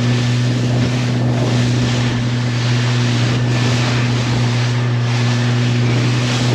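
Motorboat engine running steadily under way, a low even drone, with a rushing wash of water and wind over it that swells every second or so.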